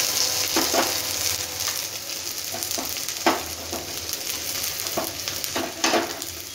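Chopped onion sizzling in hot oil with cumin seeds and dried red chilli in a steel kadhai, the start of a tempering for dal. A steel spatula scrapes and knocks against the pan several times as it stirs, the loudest strokes about three and six seconds in. The sizzle slowly dies down.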